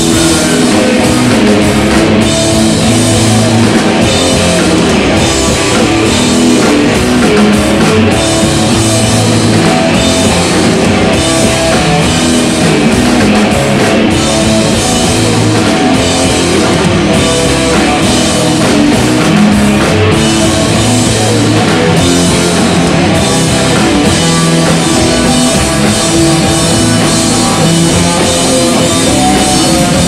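Live rock band playing loud and dense: distorted electric guitars over a drum kit with crashing cymbals, steady throughout.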